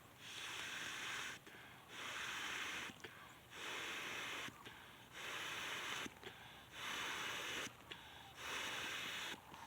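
Rhythmic rushes of air close to the microphone, each just under a second long and about one every second and a half, in the manner of heavy breathing or blowing.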